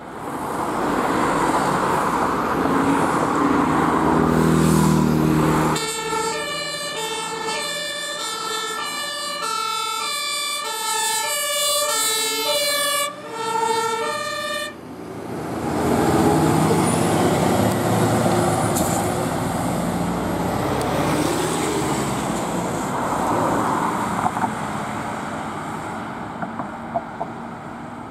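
Emergency vehicle on a call: its heavy engine pulls away under acceleration. About six seconds in, a German two-tone siren (Martinshorn) starts, alternating between a high and a low note for about nine seconds, then cuts off abruptly. Engine and road noise from the passing vehicles carry on.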